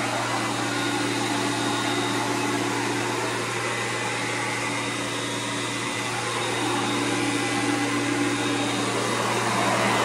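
Vintage Hoover Concept upright vacuum cleaner running steadily: a constant motor hum under the noise of rushing air.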